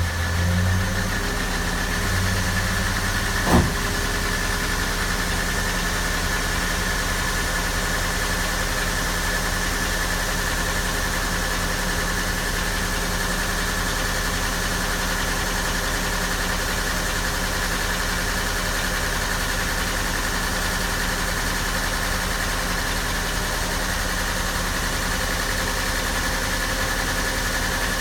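2007 Ford Crown Victoria with its engine running and a steady, thin high-pitched brake squeal held throughout. The squeal comes from the rusted parking brake cable keeping the pads rubbing on the discs. A single sharp click sounds about three and a half seconds in.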